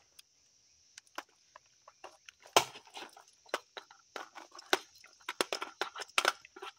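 Dry-fire reload-and-transition drill with an empty AR-15 and a Glock 19: an irregular run of clicks, clacks and knocks from trigger snaps, a magazine change and drawing the pistol. The knocks are sparse at first, with the loudest about two and a half seconds in, and come quick and close together from about four seconds on.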